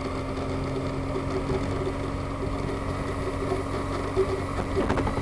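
Motorcycle engine running steadily while riding, heard from a helmet-mounted camera: an even drone with a constant low hum.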